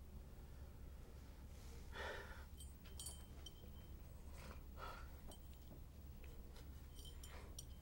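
A man's soft breaths and sniffs, a few of them spaced a second or two apart, as he holds back tears, over a low steady hum.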